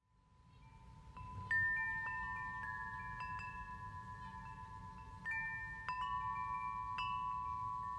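Wind chimes ringing: bright metallic tones struck at irregular moments, each ringing on and overlapping the next. The sound fades in at the start, over a low rumble.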